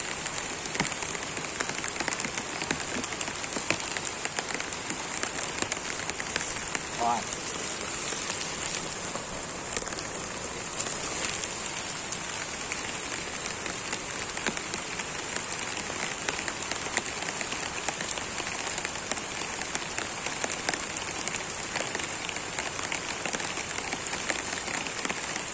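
Steady rain falling on forest vegetation, a continuous hiss made of many small drop hits.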